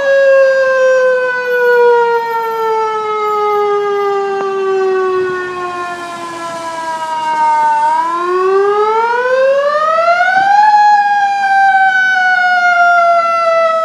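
Fire station alarm siren wailing to summon volunteer firefighters. Its pitch falls slowly for about eight seconds, rises over about three seconds, then starts to fall again.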